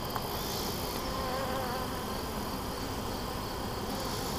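Honey bees buzzing steadily around an opened hive, a crowded comb frame lifted out among them: an even, wavering hum.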